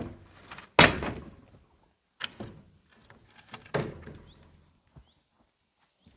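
Scrap lumber offcuts being loaded by hand, the pieces landing with wooden knocks. The loudest comes about a second in, then two more follow roughly a second and a half apart, with a faint one near the end.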